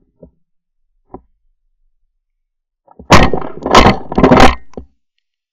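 Three loud shotgun blasts in quick succession, about two-thirds of a second apart, fired at doves in flight. A few light knocks from handling the gun come first.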